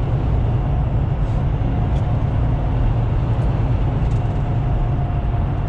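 Semi truck driving at about 50 mph through a road tunnel, heard from inside the cab: a steady, loud low rumble of engine and tyres.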